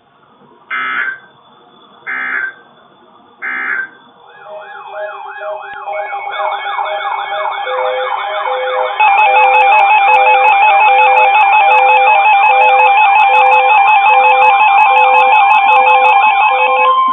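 Three short bursts of EAS digital data tones, the end-of-message code of a weather-radio alert. Then a build-up of overlapping electronic alert sounds, wavering siren-like sweeps over evenly pulsing beeps, that grows steadily louder and jumps to full volume about nine seconds in.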